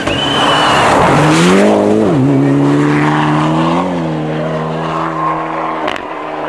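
Rally car at speed sliding past on a snow stage, its tyres and the spray of snow hissing loudly as it goes by. The engine note then climbs, drops sharply at a gearshift about two seconds in, and holds steady as the car pulls away.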